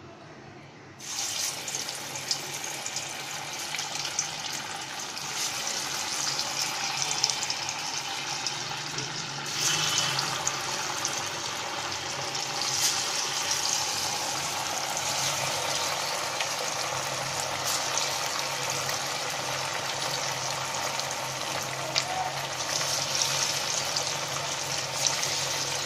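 Marinated taro (arbi) pieces sizzling as they deep-fry in hot oil in a steel kadhai. The sizzle starts suddenly about a second in and swells again near ten seconds in as more pieces are dropped into the oil.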